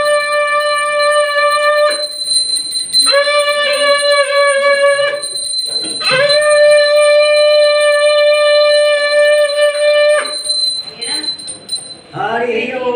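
A conch shell (shankh) blown for the puja in three long, steady blasts on one high note, each a few seconds long with short breaks for breath, the last ending about ten seconds in. Voices follow near the end.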